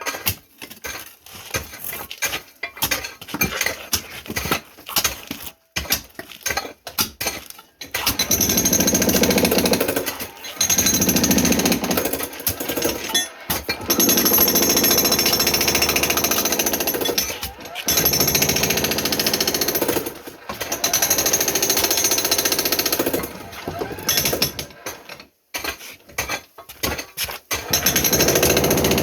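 Jackhammer breaking concrete, most likely the basement floor cut open for an interior drain. It starts with scattered knocks, then from about eight seconds in runs in bursts of a few seconds with short pauses between.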